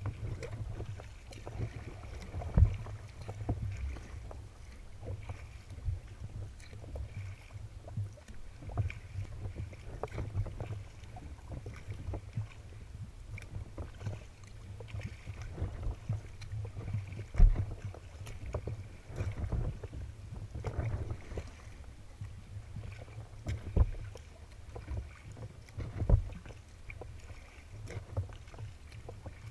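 Sea kayak being paddled through choppy water: paddle blades dipping and splashing in an irregular rhythm and water lapping against the hull, with several sharper splashes standing out. Wind rumbles low and steady on the microphone throughout.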